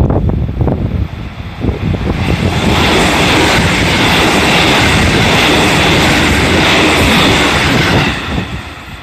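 JR Central 313 series electric train running past close by. The rush of its wheels and running gear swells about two seconds in, holds steady, and falls away near the end.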